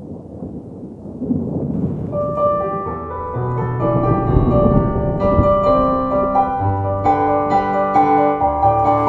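Low rumble of thunder, then piano music comes in about two seconds in and plays on over the rumble.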